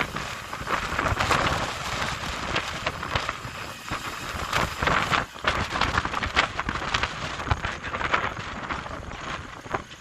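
Fire on a burning motor yacht, a steady hiss with dense crackling throughout.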